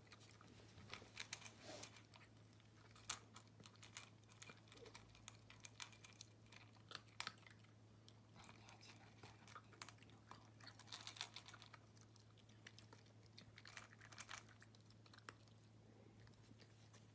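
A Shiba Inu puppy faintly crunching dry kibble, in quick irregular crisp crunches with short pauses between mouthfuls.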